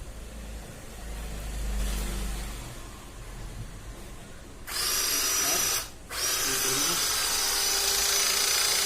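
Battery-powered 18 V hydraulic crimping tool's motor and pump running as the trigger is squeezed, pushing the piston out smoothly. It starts about halfway in with a high steady whine, stops briefly about a second later, then runs on steadily. Before it starts there is only low handling rumble.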